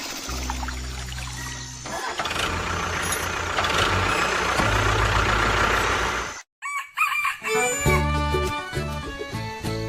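A noisy stretch over a low hum, which cuts off suddenly about six and a half seconds in; then background music starts.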